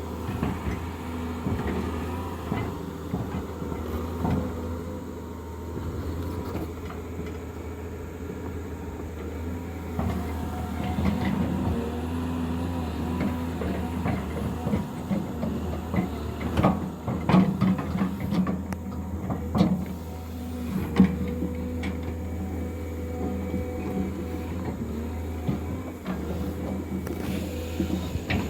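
Engine of a heavy earthmoving machine running steadily, with a cluster of clanks and knocks past the middle as it works.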